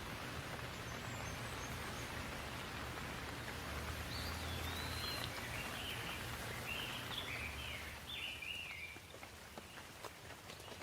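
Steady rain falling, with a bird singing a run of short chirping notes from about four seconds in. The rain eases a little near the end, with a few sharp drip ticks.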